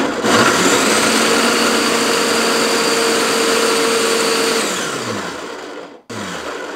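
Small electric food processor chopping green bell pepper, carrot and garlic, its motor and blade running hard with a steady hum. It checks for an instant near the start, runs for about four and a half seconds, then winds down with falling pitch, followed by a shorter, quieter run near the end.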